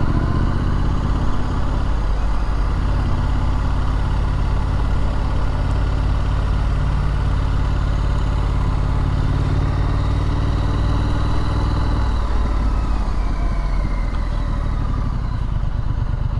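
Triumph Street Scrambler's 900 cc parallel-twin engine running at steady low revs, its note changing about twelve seconds in.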